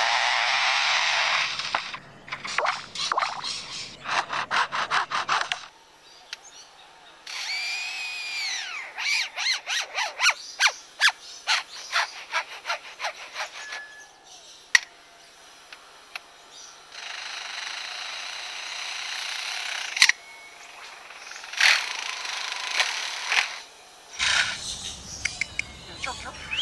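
Superb lyrebird mimicking man-made sounds: fast runs of sharp clicks like camera shutters and motor drives, and steady buzzing stretches like a chainsaw or power tool, with a few arching whistled notes between them.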